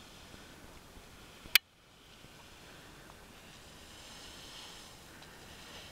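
Faint steady background hiss of an outdoor camera recording. About a second and a half in there is a single sharp click, after which the sound cuts out and slowly fades back in, as at a cut between two recordings.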